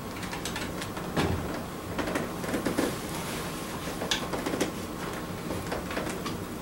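Wood fire crackling in an open stone fireplace, with scattered sharp pops. A few duller knocks and rustles of gear being handled come about a second in and again between two and five seconds in.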